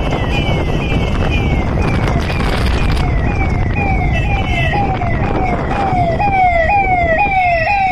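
A siren sounding in short, repeated falling sweeps, about two a second, getting louder from about halfway. Under it runs the steady low rumble of a Royal Enfield motorcycle's single-cylinder engine at road speed.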